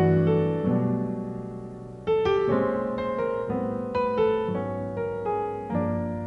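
Background piano music: chords and melody notes struck one after another and left to ring and fade.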